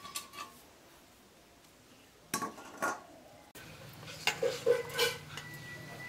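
Stainless-steel dishware clinking: a couple of knocks of steel bowls, then a steel serving spoon clinking against a steel bowl several times as curry is ladled out. A thin metallic ring hangs on briefly near the end.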